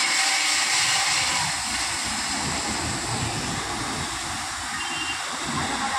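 Gravel sliding and pouring out of a tractor trolley's tipped-up bed: a steady rushing hiss with rumbling underneath, slightly louder for the first second and a half.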